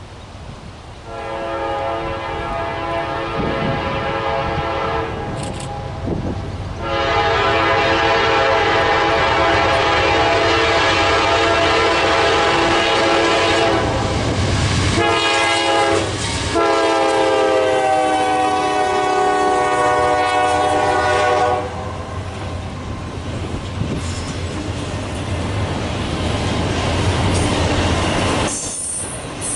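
Freight locomotive's multi-chime air horn sounding a chord in several long blasts with short breaks between them, its pitch falling during the last blast as the locomotive passes. After that, the train's cars roll by with steady wheel clatter.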